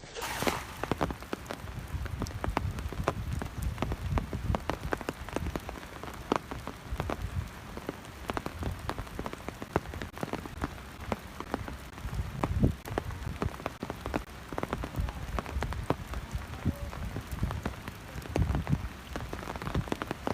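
Steady rain falling, with many separate drops landing close by in a dense, irregular spatter.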